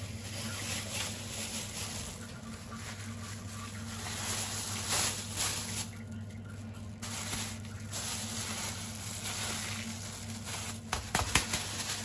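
Thin plastic bag crinkling and rustling as it is handled around a plastic ice cube tray, with a few sharp knocks near the end.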